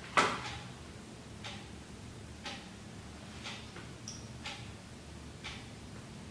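Quiet, even ticking exactly once a second, like a clock. About a fifth of a second in, one sharper, louder click stands out.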